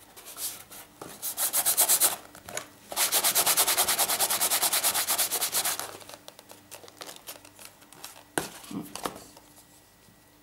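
Rapid back-and-forth rubbing on glued paper-covered cardboard. There is a short spell of strokes about a second in, then a longer, louder run of about three seconds, followed by a few light handling clicks.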